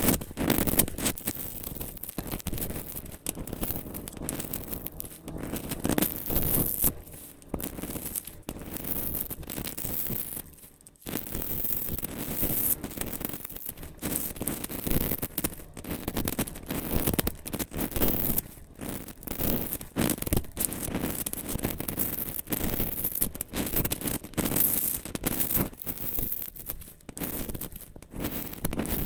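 Dry soap being cut and crushed close to the microphone: an irregular run of scraping, crumbling strokes, several a second, with a brief pause about eleven seconds in.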